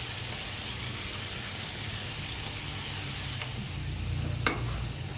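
Food frying with a steady sizzle, and one sharp click near the end.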